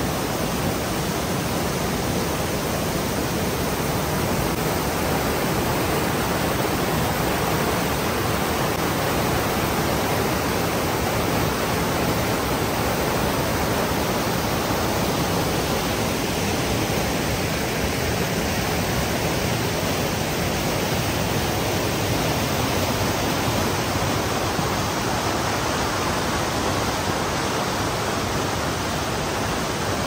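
Rushing water of a fast rocky stream running over boulders and small rapids, a steady, even rush with no change throughout.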